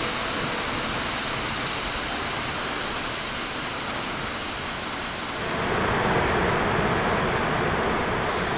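Steady rushing of a large waterfall, Skógafoss, falling onto the plain below; about five and a half seconds in it gives way to a louder, fuller rushing of the wide, stepped Gullfoss falls.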